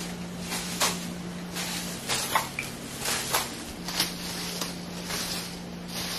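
Irregular soft clicks and knocks, about a dozen, over a low steady hum.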